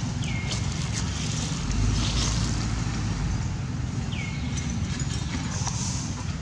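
Wind buffeting the microphone: a steady low rumble. Two short high calls that fall in pitch, about four seconds apart, sound over it.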